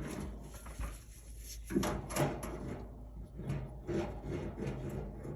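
Handling noise from work inside an opened clothes dryer: scattered knocks, scrapes and rubbing, with a couple of louder knocks about two seconds in.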